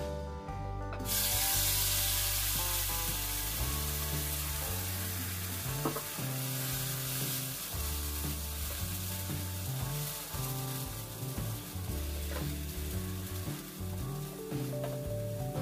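Wet green masala paste of onion, garlic, ginger, mint and coriander hitting hot oil in a pan: a loud sizzle that starts suddenly about a second in. It then settles into a steady frying sizzle as the paste is stirred with a spatula.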